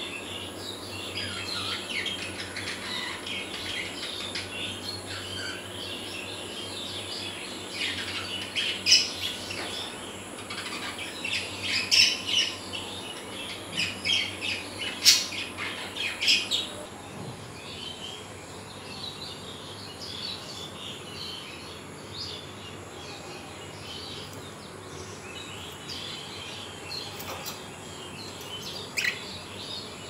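Budgerigars chattering and chirping with quick, high warbling calls. Sharp, louder calls come through the middle, then the chatter goes softer.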